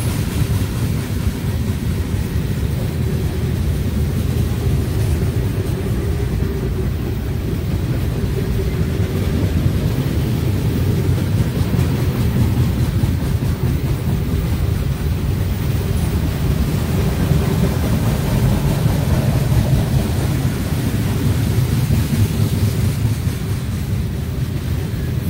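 Freight cars of a manifest train rolling past close by: a steady low rumble of steel wheels on the rails.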